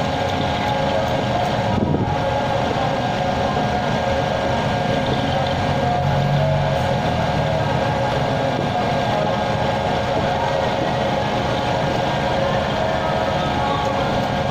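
A heavy engine running steadily, with a constant whine over a dense rumble.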